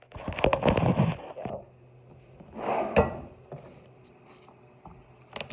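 Handling noise as the camera is moved and repositioned, rubbing and knocking for about a second and a half, with another thump and click about three seconds in. Near the end comes a sharp knock of a kitchen knife on the cutting board.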